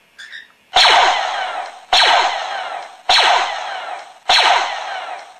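Four Star Wars blaster shot sound effects played from an MP3 through a small portable speaker amp, about one every 1.2 seconds. Each starts suddenly and fades away with falling, whistling pitch sweeps.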